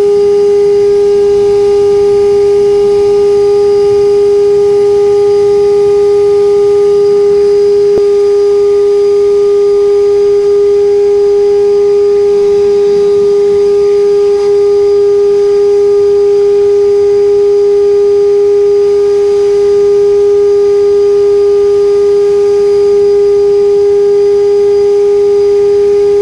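EGO 575 CFM 56-volt cordless leaf blower running at one steady speed: a loud, unchanging high-pitched whine over a rush of air as it blows water off a car.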